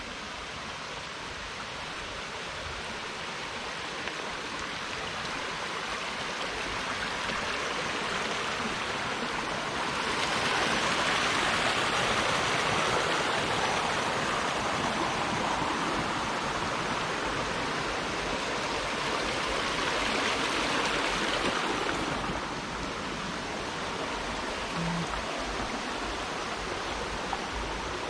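Shallow stream babbling over stones and riffles. It grows louder about a third of the way in and eases off again about two-thirds of the way through.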